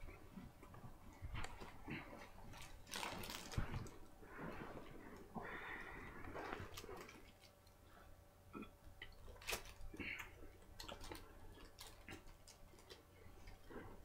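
Faint eating sounds: someone chewing and swallowing mouthfuls of McChicken sandwich, with scattered small clicks and soft rustles.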